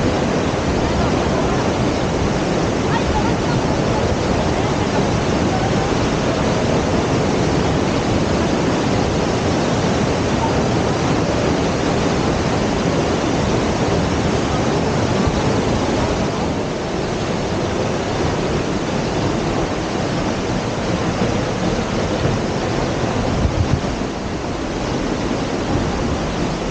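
Waterfall: a steady, dense rush of falling water that dips slightly in level about two-thirds of the way through.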